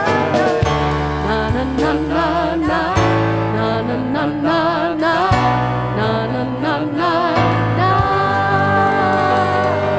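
Worship music with singing: a voice with vibrato carries a melody over sustained bass and instrument chords, ending on a long held note.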